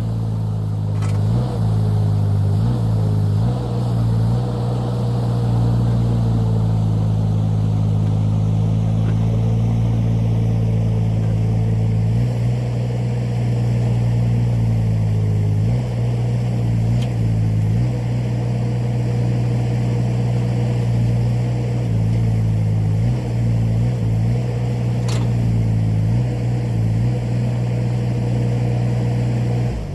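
A 2-ton mini excavator's engine running steadily at high speed, its note dipping briefly several times as the hydraulics take load while it digs. A faint steady higher tone sits above the engine.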